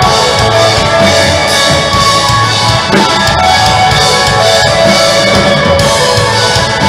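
Live rock band playing loudly: electric guitars and a drum kit.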